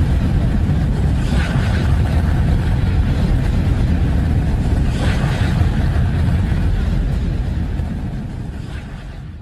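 Sonified spacecraft radio and plasma-wave recording, presented as the sound of a moon: a loud, dense rumbling hiss, heaviest in the low end, with two brief brighter swells. It fades away over the last couple of seconds.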